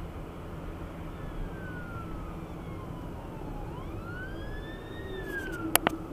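An emergency-vehicle siren in a slow wail, its pitch falling, then rising and falling again, over the steady road and engine noise inside a moving car. Two sharp clicks near the end.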